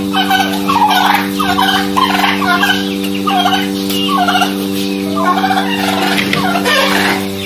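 Turkeys gobbling again and again in quick rattling calls, over a steady low hum.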